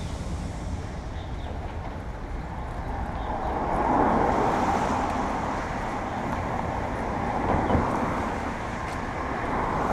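Road traffic going by, with a steady low rumble and a vehicle passing close about four seconds in and another just before eight seconds.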